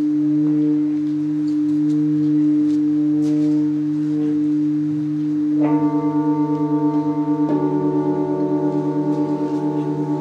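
Large Tibetan singing bowls ringing with a steady, low, slowly wavering hum. Nearly six seconds in a bowl is struck, adding brighter, higher tones, and a second strike about a second and a half later adds another; the tones then beat rapidly against each other.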